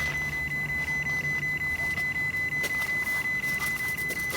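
Steady high-pitched electronic whine over a low hum, pulsing rapidly and evenly, like electrical interference on the recording.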